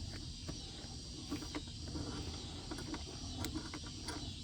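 Hand ratchet working the door hinge bolts: faint, irregular clicks and knocks over a steady low background hum.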